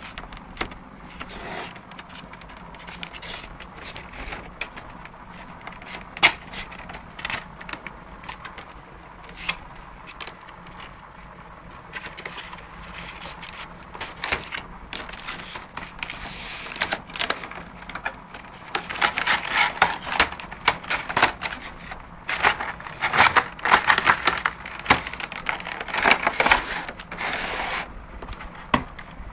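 Cardboard retail box and plastic packaging tray of an LG Magic Remote being handled and opened: scattered clicks and knocks at first, then a long stretch of loud crackling and rustling about two-thirds of the way in.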